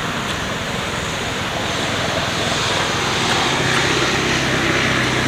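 A motor vehicle engine running over a steady background noise, its hum coming in and getting louder about three seconds in.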